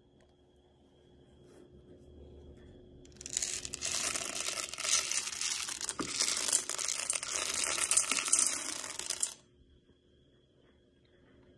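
Dried adzuki beans poured from a plastic measuring cup onto uncooked rice in a stainless steel pot: a dense, crackling patter of beans landing. It starts about three seconds in and stops suddenly about six seconds later.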